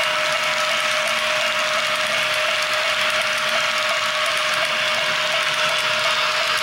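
HO scale model train of tank cars rolling along the track: a steady clatter of small metal wheels with fast fine clicking, over a steady thin hum.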